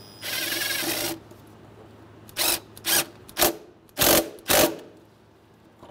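Cordless drill driving an 8 mm socket on a worm-gear hose clamp, tightening the clamp: one steady run of about a second, then five short trigger bursts.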